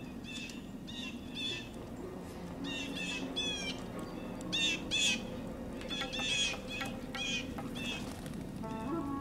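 Blue jays calling: about a dozen short, harsh jeer calls in quick bunches, one near the middle sliding down in pitch, over faint background music.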